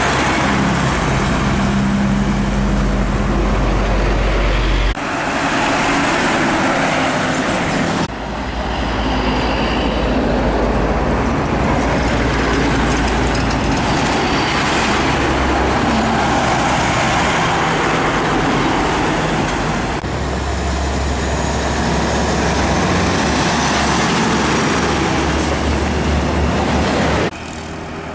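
Heavy diesel trucks, among them a Nissan Diesel rigid truck and a Hino tractor-trailer, driving past close by one after another: a steady low engine drone with tyre and road noise. The sound changes abruptly several times as one pass gives way to the next.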